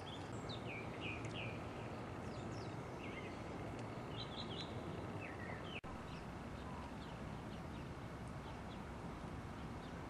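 Several small birds chirping in short, quick notes, many of them dropping in pitch, scattered irregularly over a steady outdoor background hum. The sound drops out for an instant about six seconds in.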